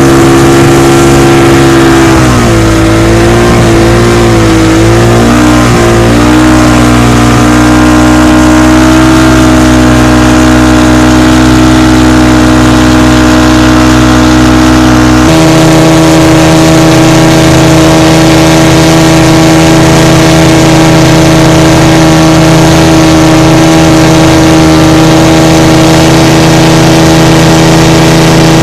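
Motorboat engine running loud and steady; its pitch wavers up and down for a few seconds early on, then holds, and about halfway through shifts abruptly to a different steady pitch.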